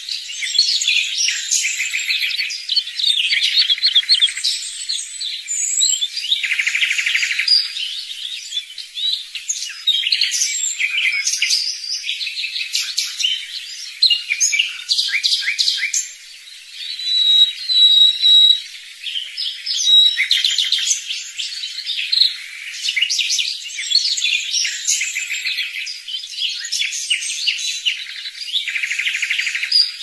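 A chorus of songbirds singing together: quick chirps, rapid trills and short high whistled notes overlapping one another, with a brief lull about halfway through.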